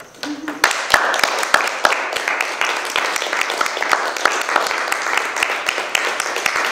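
Audience applauding, beginning just after the start and building to full strength within the first second.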